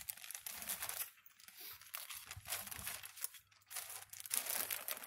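Clear plastic bag crinkling and rustling in short irregular spells as a notebook is packed back into it.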